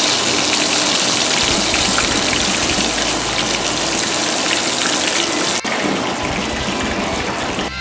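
Guinea pig frying in hot oil in a pan for cuy chactado: a loud, steady sizzle. About five and a half seconds in, the sizzle suddenly turns duller.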